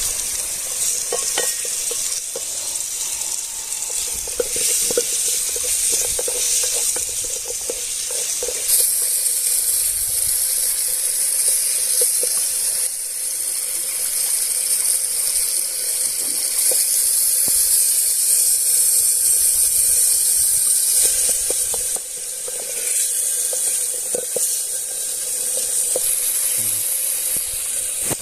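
Food sizzling as it fries, a steady hiss with many small crackles that grows louder partway through.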